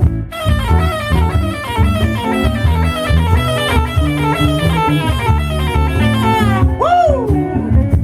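Live blues band playing: an electric guitar solo of quick falling runs over bass guitar and drums, with one long bent note rising and falling near the end.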